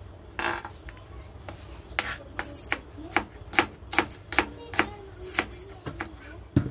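Kitchen knife slicing vegetables on a chopping board: a steady run of knocks, about two or three a second, starting about two seconds in.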